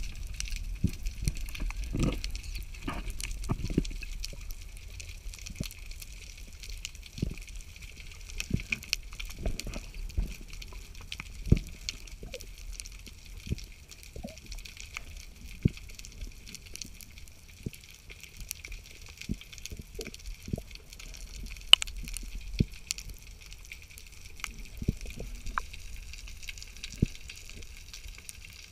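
Underwater ambience picked up by a camera beneath the sea: a steady crackling hiss with scattered, irregular clicks and knocks.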